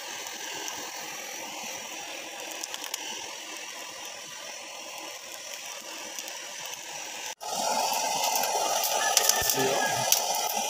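Hand-held butane blowtorch hissing steadily as its flame singes the skin of a plucked chicken. About seven seconds in the sound cuts and comes back louder, with scattered crackling ticks.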